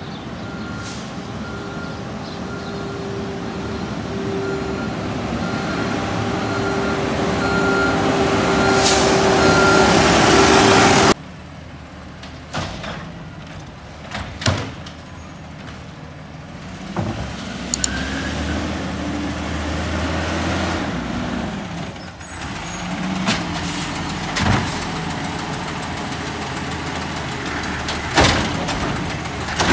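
Automated garbage truck approaching with a steady whine that grows louder. After a sudden change it is running close by while its hydraulic arm lifts a cart, with a rising and falling hydraulic whine, short hisses and clunks, and a few sharp knocks near the end.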